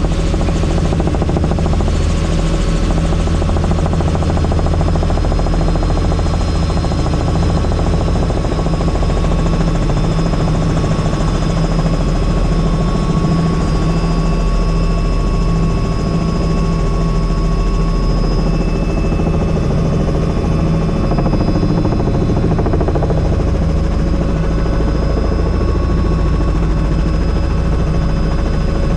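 Helicopter in steady flight: the low beat of the main rotor with a constant high turbine whine over it.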